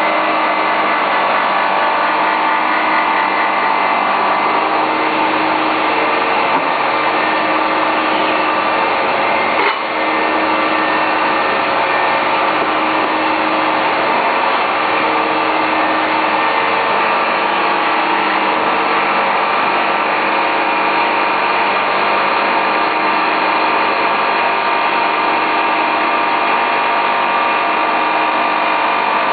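Round bowl cleaning and polishing machine running steadily: a continuous motor hum with a whine and a scrubbing, polishing noise, with one brief dip about ten seconds in.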